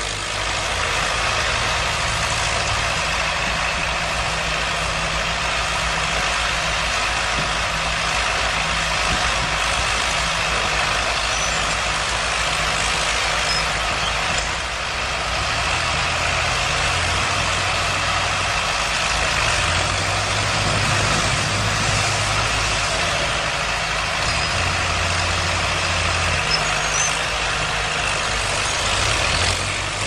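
Heavy machine engine running steadily under a continuous mechanical noise, its low drone shifting in pitch a few times.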